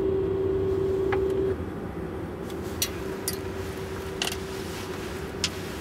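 Steady electrical hum of a stopped TGV power car's cab, with a held tone that cuts off about one and a half seconds in and a fainter one after. A few light clicks are scattered through.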